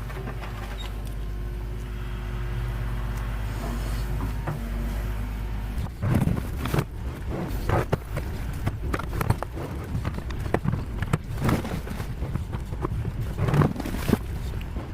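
Excavator's diesel engine running steadily. From about six seconds in come repeated irregular knocks and scrapes, typical of the bucket digging into soil and stones.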